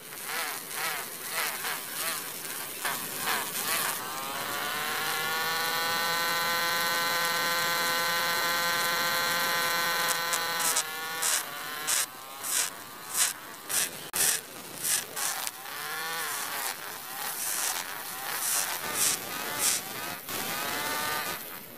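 Small electric motor of a toy tractor whining as it spins a miniature circular sander wheel through a rubber-band belt. About four seconds in the pitch rises and then holds steady. From about halfway on, a small sickle blade is touched to the wheel again and again in short scrapes, and the motor's pitch wavers under the load.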